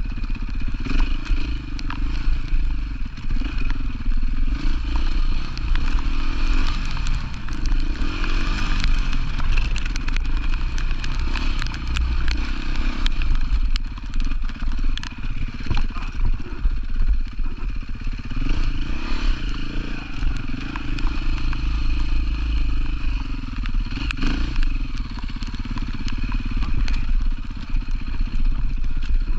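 Off-road rally motorcycle engine running continuously, revving up and down. Under it there is a steady low rumble and many short clicks and clatters.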